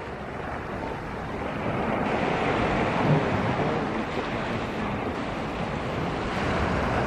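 Sea waves washing onto the shore in slow swells, with wind buffeting the microphone.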